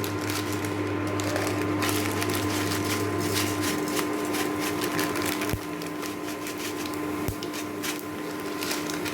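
Oil heating in a pan, with many small scattered crackles and pops over a steady hum. A low hum cuts out about four seconds in, and two soft knocks come later.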